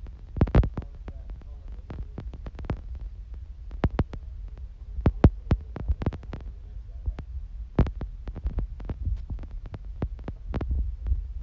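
Handling noise: irregular clicks and knocks, several of them sharp, over a steady low hum.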